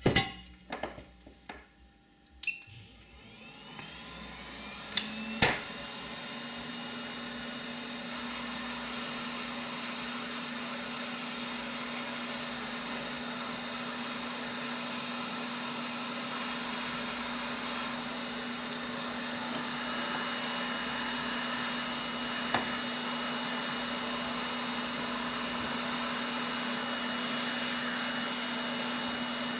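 Handheld heat gun starting up a few seconds in, after some clicks of wire handling, then blowing steadily with a constant hum, shrinking heat-shrink tubing over spliced fan wires.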